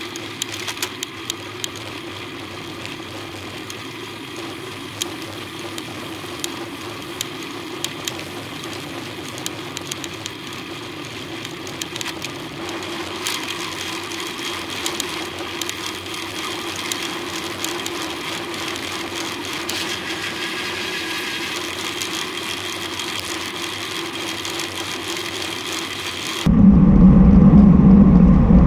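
Riding noise picked up by a camera mounted on a road bicycle in a group ride: a steady whir of tyres and air with frequent small clicks. About 26 seconds in it cuts abruptly to a much louder low rumble.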